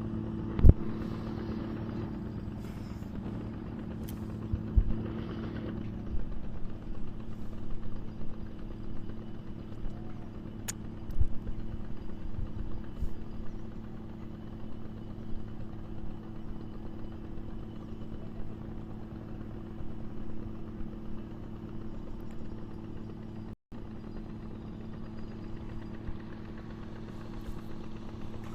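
A small engine running steadily at one unchanging speed, with scattered knocks and clatter over it.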